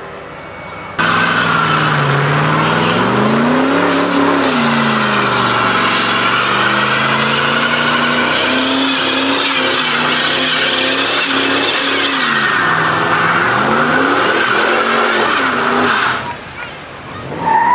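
Chevrolet Camaro doing a burnout: the engine revs up and down several times while the spinning rear tyres squeal continuously. The sound starts suddenly about a second in and cuts off sharply near the end.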